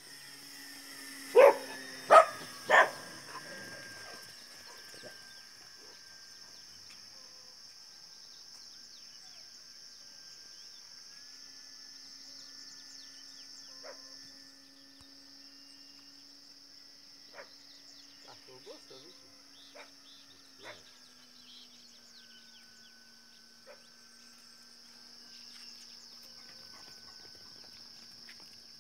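A dog barks three times, loud and sharp, about a second and a half in. Underneath, a steady high insect drone and the faint steady hum of a radio-controlled model airplane's motor continue, the motor's pitch dropping slightly about two-thirds of the way through, with a few faint knocks near the middle.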